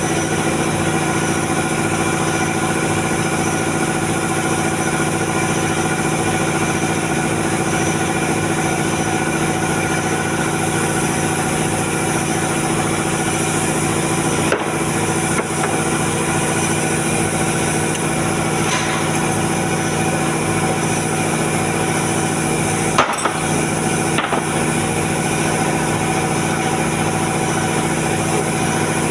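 Machinery running steadily with an even hum, broken by a few sharp clicks, the loudest about 23 seconds in.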